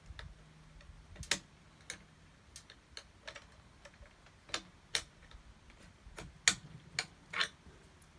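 A dozen or so small, sharp clicks and taps at uneven intervals, from an air bolt being pushed and seated in a Benjamin Bulldog air rifle's barrel, metal tapping on metal.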